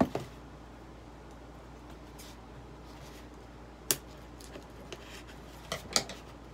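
Scissors cutting open a shipping package: sharp snips and clicks at the start, about four seconds in and twice near the end, with light rustling of the packaging between.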